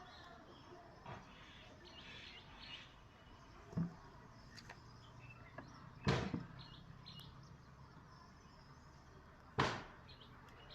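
Faint bird chirps over steady background noise, broken three times by a sudden sharp thump: once about four seconds in, and louder about six and nine and a half seconds in.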